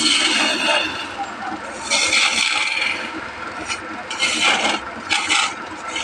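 Wood being scraped in four separate rasping strokes, each under a second long.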